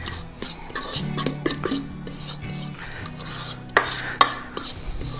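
A fork scraping batter out of a stainless steel mixing bowl: repeated metal-on-metal rasping with sharp clicks and scrapes. Low, steady background music runs underneath.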